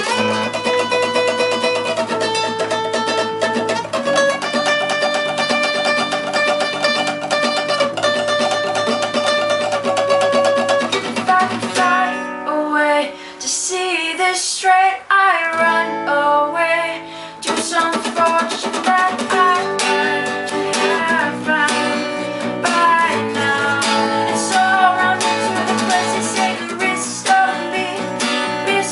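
A band playing a rock song with guitars: held chords for about twelve seconds, a sparser passage of sliding notes for a few seconds, then the full band again.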